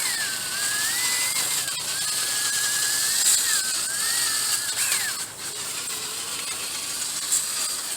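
Small power tool whining as it scrubs a car battery terminal clean. Its pitch rises and falls with the load, and the whine stops about five seconds in.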